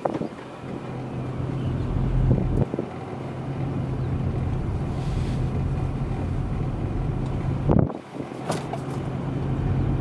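Car driving along a paved road, heard from inside the cabin: steady low engine and tyre hum with wind noise, and a few sharp knocks about eight seconds in.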